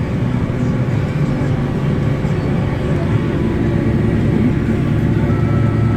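Farm tractor's diesel engine running steadily, a low even drone. A faint thin whine joins in near the end.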